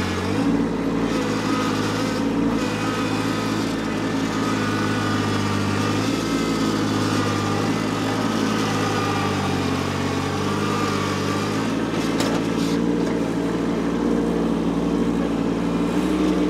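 Kubota B2601 compact tractor's three-cylinder diesel engine running under load as its front loader bucket digs and pries at a tree stump's roots. The engine note shifts a little as the load changes, with a few brief knocks about twelve seconds in.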